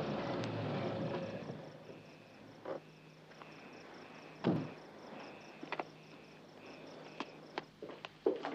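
A car engine dying away as the car pulls up and stops, then crickets chirping in a fast, even pulse. A car door shuts with a thud about four and a half seconds in, and a few sharp clicks follow near the end.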